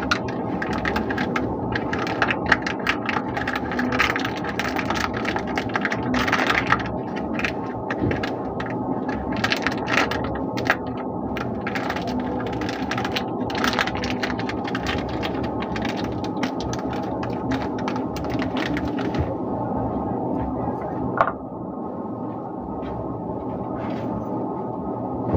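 Crinkling and crackling of a glossy plastic soap wrapper being torn and peeled off a bar of Lifebuoy soap, in quick irregular clicks, settling near the end into quieter handling of the bare bar with one sharp click.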